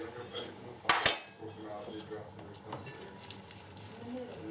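Kitchenware handling: one sharp clink against a dish about a second in, the loudest sound, then faint light clinks as tamarind balls are worked in sugar.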